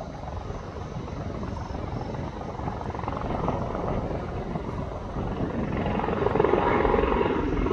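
Single-turbine Airbus H130 helicopter in flight on approach, its rotor beating steadily and growing louder as it comes nearer, loudest over the last two seconds.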